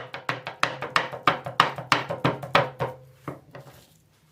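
Kitchen knife chopping beef on a wooden chopping board: quick, evenly spaced strokes, about three a second, that grow weaker and stop near the end.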